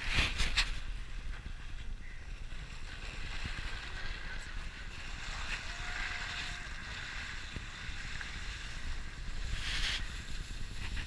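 Low rumble and wind noise on the microphone of a car-mounted GoPro as the car drives slowly over snow, with louder rushes of hiss at the start and again about ten seconds in.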